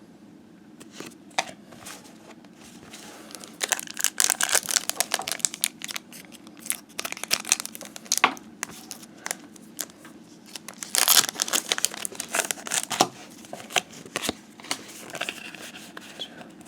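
Foil wrapper of a trading card booster pack being torn open and crinkled by hand. It comes in several bursts of crackling, the loudest about four and eleven seconds in.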